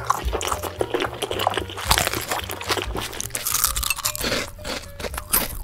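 Rapid crunching and crackling, like something being bitten and chewed, as a dubbed sound effect, with a low bass line of background music beneath.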